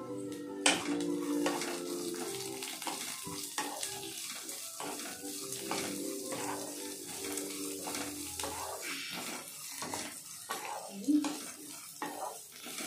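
Cooking in a pan: a utensil clinking and scraping many times over a steady sizzle, with held musical tones underneath.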